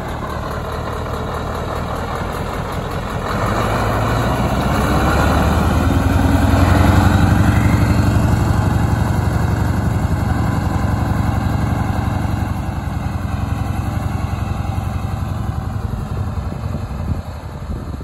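Scania T144 530's 14-litre V8 diesel idling, then pulling away about three seconds in: the engine grows louder with a rising note as the truck accelerates, then fades as it drives off.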